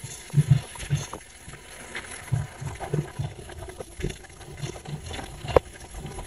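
Short, low snuffling grunts, repeated irregularly about twice a second, from a cat and a shih tzu nuzzling face to face, with faint clicks between.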